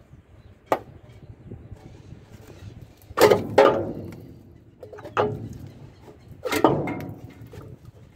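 Metal clanks of a semitrailer drum-brake shoe and its return springs as the shoe is worked off the axle by hand against the spring tension: about five sharp knocks, each with a short ringing tail, the loudest a pair about three seconds in and another about two-thirds through.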